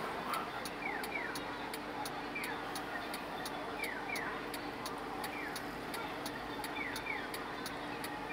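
Japanese pedestrian crossing signal's electronic bird-chirp tones: short falling chirps, one chirp answered by a double chirp about every second and a half, over a steady fast ticking and the hum of city street traffic.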